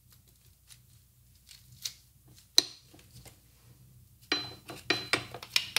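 Metal garlic press being handled and scraped clean with a knife: a few faint clicks, a sharp click about two and a half seconds in, then a quick run of clinking, scraping strokes of knife on press near the end.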